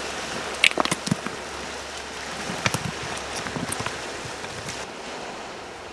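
Steady open-air background hiss with scattered light clicks and crackles; the upper hiss drops away near the end.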